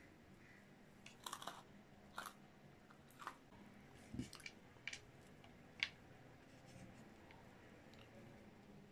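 Close-miked chewing of a chicken tortilla wrap: soft, scattered crackles and mouth clicks over the first six seconds, with one dull thump about four seconds in, then quiet.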